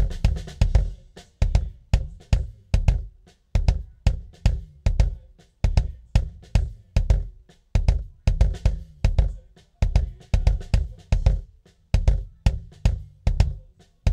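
A recorded live kick drum track playing back through a noise gate that is being set: heavy bass drum hits about twice a second, with snare spill riding on the hits and each hit dying away before the next. The gate threshold is being raised to shut out bleed from the rest of the kit.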